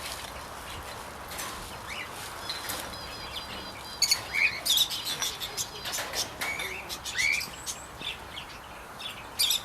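Aviary birds chirping: short rising calls and a quick run of high notes, growing louder and busier about four seconds in, with scattered sharp clicks among them.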